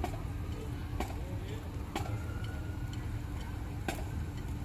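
Street ambience: a low steady rumble of traffic with faint crowd chatter, and a sharp tick about once a second.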